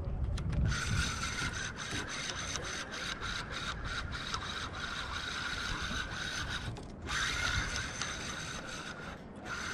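Spinning fishing reel being cranked: a steady gear whine with regular clicks, stopping briefly about seven seconds in and again near the end.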